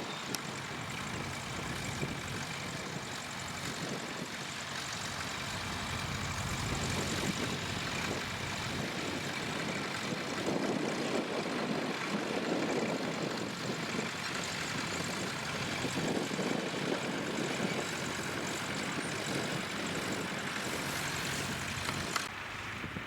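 Tractor engine running steadily, growing louder for several seconds in the middle and then easing back.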